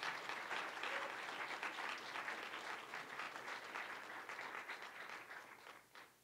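Audience applauding, the clapping thinning out and dying away, with a last clap about six seconds in.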